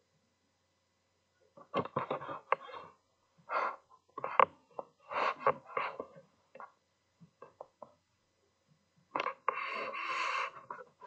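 Irregular clusters of sharp clicks and knocks starting about a second and a half in, followed near the end by about a second and a half of denser scraping or rustling noise.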